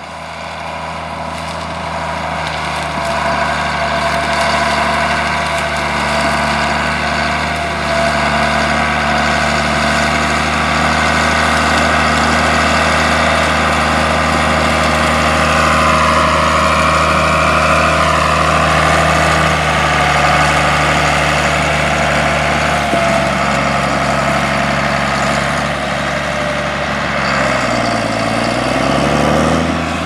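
John Deere 4640 tractor's turbocharged six-cylinder diesel engine running steadily while pulling a grain cart. Its pitch steps down about three quarters of the way through, then dips and climbs again near the end.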